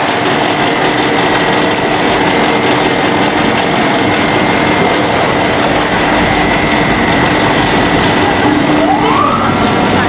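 Steady, loud running noise of rice-husk-fired steam boiler machinery, with a few steady hums. Near the end a whine rises in pitch and then holds steady.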